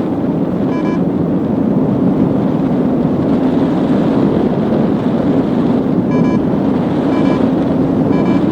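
Strong wind buffeting the microphone in flight under a paraglider. A flight variometer gives short beeps about a second apart, once about a second in and three times near the end, signalling rising air.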